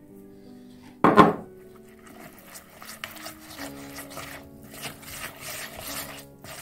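Liquid emptied from a glass cup splashes into a bowl of dry cocoa and flour about a second in, the loudest sound. It is followed by a utensil stirring the mix, brushing and scraping against the bowl in quick repeated strokes, over soft background music.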